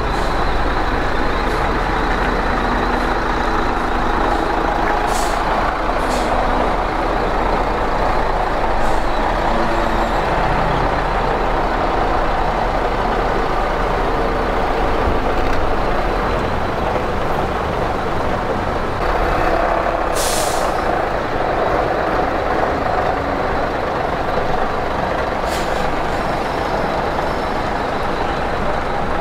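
Diesel engines of vintage buses and coaches running and manoeuvring at low speed. Over them come short hisses of air brakes letting off air, the longest and loudest about twenty seconds in.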